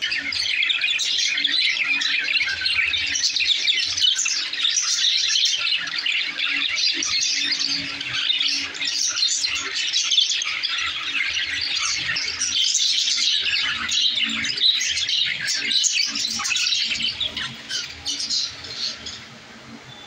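A flock of budgerigars chattering together in a dense, continuous stream of calls and squawks, starting abruptly and dying down near the end.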